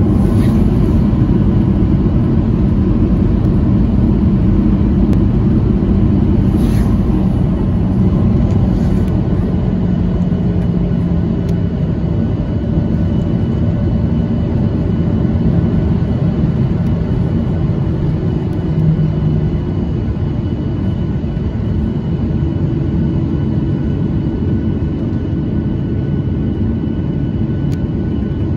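Cabin noise inside a Boeing 737-800 on the ground: a steady, even rumble from its CFM56-7B engines running without spooling up, with a faint high whine over it, as the aircraft rolls slowly.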